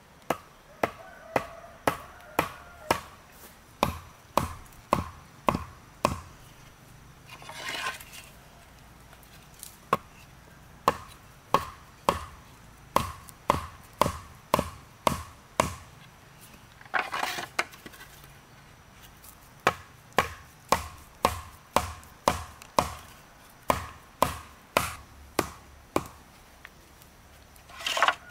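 Split bamboo stakes being driven into the earth with blows from a hatchet head: runs of sharp woody knocks about two a second, broken by a few short scraping rustles between runs.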